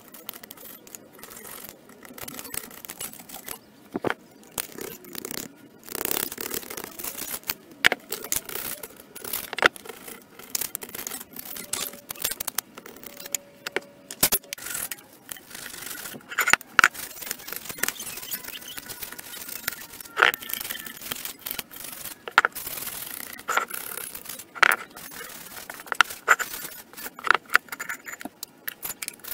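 Metal hand tools scraping caked rust and grime off an old vise, with many sharp knocks and clinks of steel on the vise's metal throughout.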